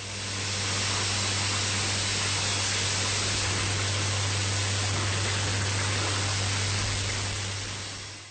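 Water rushing in a steady, even flow, with a steady low hum underneath. It fades in at the start and fades out at the end.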